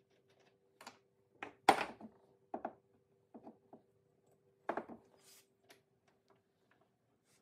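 Metal brake caliper and small parts being handled and set down on a workbench: a series of separate knocks and clinks, the loudest about two seconds in, over a faint steady hum.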